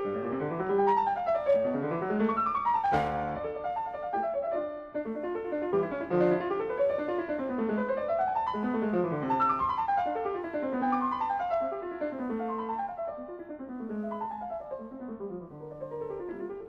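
Background piano music: quick runs of notes rising and falling.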